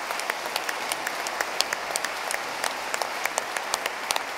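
Audience applauding steadily, many hands clapping with individual claps standing out.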